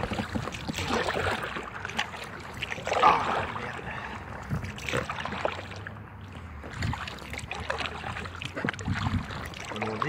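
Kayak paddle strokes splashing and dripping in river water, irregular, with a louder splash about three seconds in.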